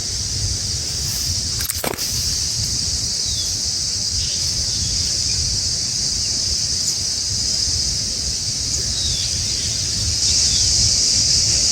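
Outdoor ambience: a steady high-pitched hiss with a low rumble beneath, a sharp click about two seconds in, and a few short, faint falling bird chirps.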